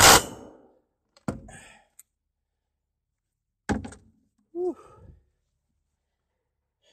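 Sharp thuds in a small enclosed space: a loud one at the start, then lighter ones about a second and nearly four seconds in, followed by a brief squeak that rises and falls in pitch.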